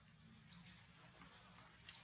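Near silence with two faint, sharp clicks, one about half a second in and one near the end.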